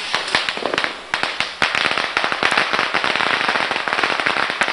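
Firecrackers going off in a rapid, dense run of sharp cracks, scattered at first and then near-continuous crackling from about a second and a half in.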